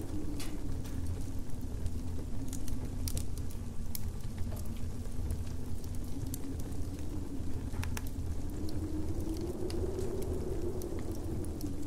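Winter ambience: a campfire crackling with scattered sharp pops over a steady low rumble and a wind-like howl that slowly wavers in pitch, rising a little near the end.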